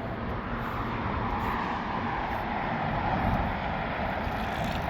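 Steady hum of freeway traffic, swelling slightly in the middle and easing again.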